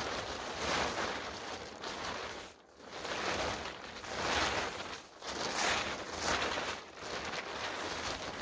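Nylon tarp rustling in repeated swells, about a second each with short breaks between, as it is handled and pulled into shape for a shelter.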